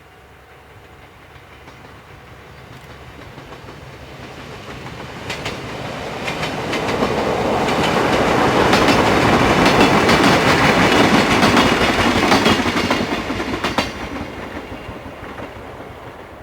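Chichibu Railway train approaching, passing close by and pulling away, louder and then fading. Its wheels clack over the rail joints for several seconds as it goes by.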